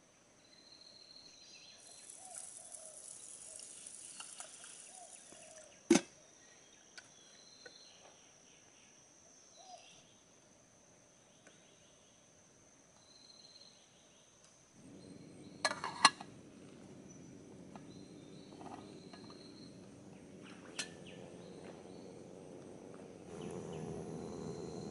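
Forest insects keeping up a steady high whine, with sharp knocks about 6 s in, a quick double knock around 16 s and one more near 21 s. A low rushing noise comes in about 15 s in and grows louder near the end.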